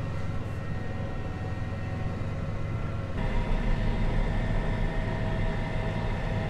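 Heavy farm vehicle's diesel engine running steadily under way, a deep drone with a faint high whine; about three seconds in the engine note gets deeper and a little louder.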